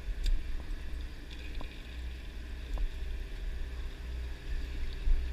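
Low, steady rumble of a sportfishing boat's engine, with wind buffeting the microphone. A few light clicks and taps are heard.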